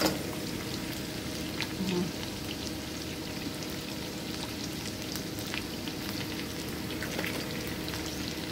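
Whole blue swimmer crabs frying in hot oil with garlic and onion in a pot: a steady sizzle with scattered small pops and crackles.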